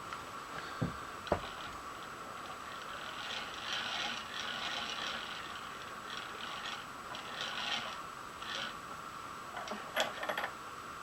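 Milling machine table being moved by its handwheel, the leadscrew and gears whirring in uneven spells, with two sharp knocks about a second in and a few clicks near the end.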